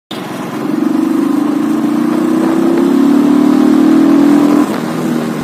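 Royal Enfield Thunderbird 350X's single-cylinder engine running under way, its note rising slowly, then dropping in level about four and a half seconds in.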